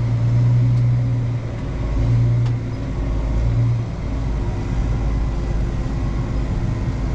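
Deutz-Fahr tractor's diesel engine running steadily under light load, heard from inside the closed cab as the tractor drives slowly. Its low hum swells and eases a few times in the first few seconds.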